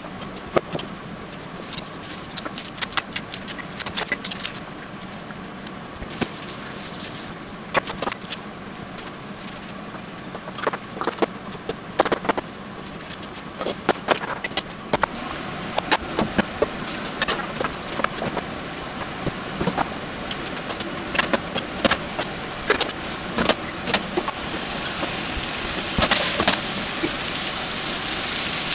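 Kitchen knife cutting potatoes and then an onion on a plastic cutting board: irregular sharp knocks of the blade on the board. Near the end a sizzle rises and grows louder as potato chunks fry in oil in frying pans.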